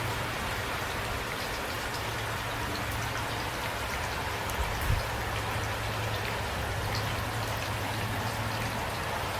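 Steady rain falling, an even hiss with scattered individual drop ticks and a steady low rumble beneath. A brief low thump about five seconds in.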